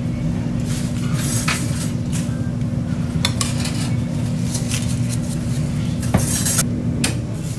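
Metal cooking utensils clinking and scraping against a foil-lined griddle pan of stir-fried pork tripe, a few short strikes with the loudest near the end, over a steady low hum that stops near the end.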